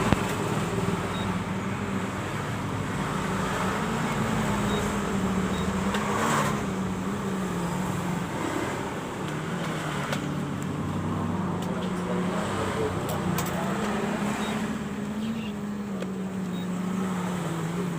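Canon imageRUNNER 6075 photocopier running, a steady motor hum whose pitch drifts slightly, with a few faint clicks.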